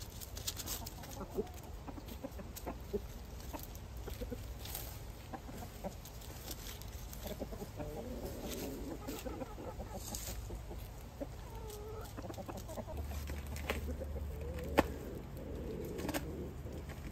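Backyard hens clucking softly as they forage, with a few light clicks, the sharpest about three-quarters of the way through.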